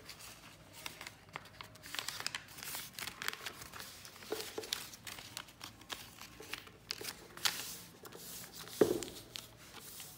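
Lined notebook paper being folded and creased by hand into a paper airplane: irregular rustling and crinkling with short crackles, one louder crackle near the end.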